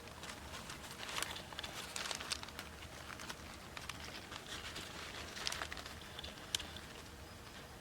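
Wood fire crackling: irregular sharp pops and snaps, clustered in spurts, with one sharp pop a little after six seconds.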